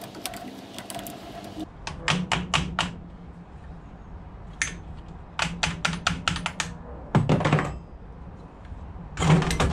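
Runs of sharp metallic clicks, several a second, as a T-handle wrench works the pivot screws on a Stihl HLA 65 hedge trimmer's angle-adjusting head to slacken them. Two heavier knocks come near the end.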